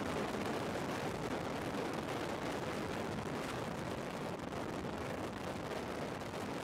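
Steady rushing noise with a low rumble, even and unbroken, with no pitch and no distinct events.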